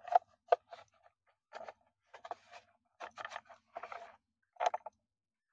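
Irregular short scrapes and clicks of hands handling a dusty, clogged motorcycle air filter element, with two sharp clicks in the first half-second.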